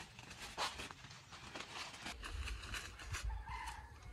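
Footsteps crunching through dry leaves and brush, several short steps. Near the end a rooster begins to crow.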